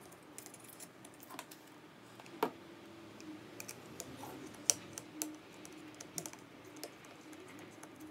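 Small irregular clicks and taps of a screwdriver and screws on the plastic parts of a DJI Mavic Pro drone during reassembly. Two sharper clicks stand out, about two and a half seconds in and just before five seconds in.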